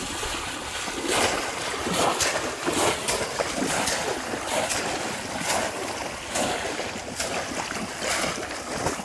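Shallow pond water splashing and churning as bamboo polo fish traps are slammed down into it and legs wade through, about one loud splash a second.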